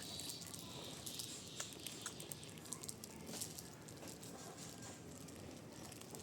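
Faint, scattered small clicks and rustles of people eating and handling snacks.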